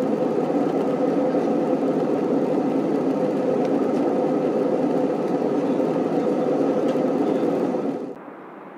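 Steady drone of a jet airliner's cabin in cruise flight: engine and airflow noise heard beside the window over the wing. It cuts off about eight seconds in, and a much quieter steady hiss takes over.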